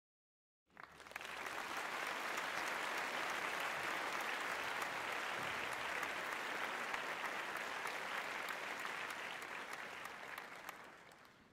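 Applause: many hands clapping in a dense, even patter that starts abruptly about a second in and fades out near the end.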